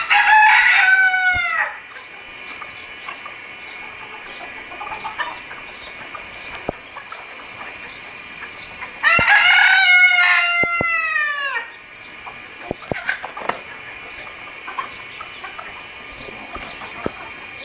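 Domestic rooster crowing twice, two long calls about nine seconds apart, with hens clucking quietly in between.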